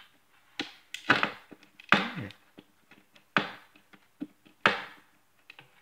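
About five sharp knocks, each trailing off in a short scrape, from the plastic case and circuit board of a radio controller being handled and worked apart on a desk, with lighter clicks between them.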